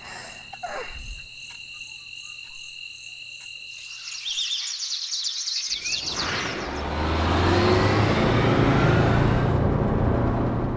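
Cartoon sound effects: steady cricket chirping, then a rising whoosh about halfway through, giving way to the low steady rumble of a moving passenger vehicle that grows louder in the last few seconds.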